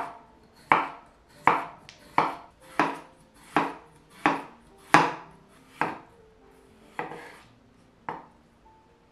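Chef's knife slicing peeled raw potatoes into rounds on a wooden cutting board: about eleven crisp cuts, one every second or less, each ending in a knock on the board. The last two cuts come more slowly and are softer.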